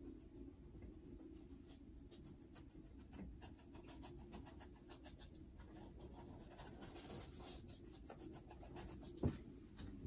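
Small paintbrush dabbing and stroking acrylic paint onto a stretched canvas: a quick run of faint, scratchy taps. One louder knock comes about nine seconds in.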